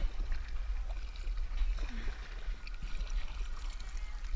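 Kayak paddle strokes and small splashes of water around an inflatable kayak, under a steady low rumble.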